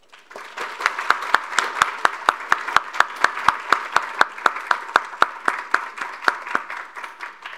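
Audience applauding. One pair of hands much closer and louder than the rest claps steadily at about four claps a second. The applause builds in the first half-second and dies away near the end.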